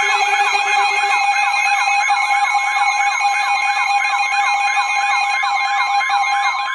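Weather radio alert alarm: an electronic siren tone sweeping up and down about three times a second over a steady beep tone, marking an incoming National Weather Service warning. Near the end the sweeping stops and a steady alert tone carries on alone.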